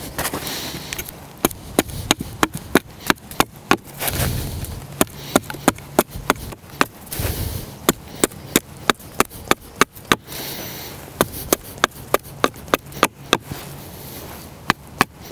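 Small axe chopping at the end of a wooden digging stick to carve it to a point. Quick runs of sharp knocks, about four a second, broken by short pauses.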